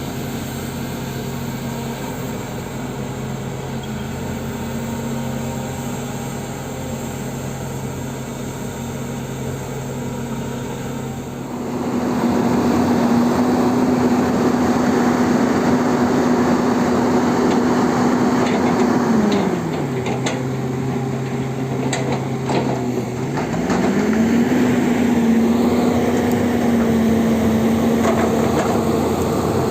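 Excavator diesel engine running at a steady low speed, then revving up and holding high revs under hydraulic load about twelve seconds in. The revs drop back for a few seconds, with some sharp knocks, then rise and hold again.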